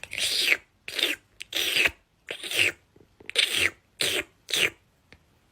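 A cat giving seven short, raspy calls in quick succession, each under half a second long.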